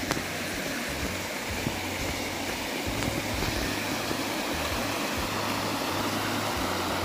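Steady rush of a river flowing through a rocky gorge.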